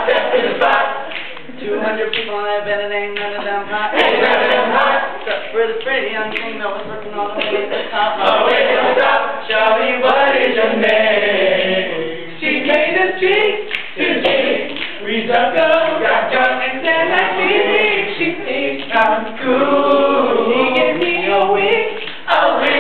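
An a cappella vocal group singing together in harmony, several voices at once with no instruments.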